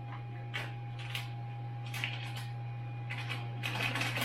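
Brief rustles and light clicks of things being handled, several times, over a steady low hum and a faint steady higher tone.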